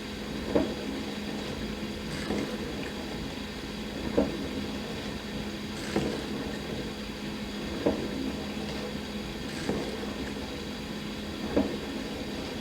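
Dishwasher running through its wash, a steady hum with a low tone, broken by a short splash of water about every two seconds.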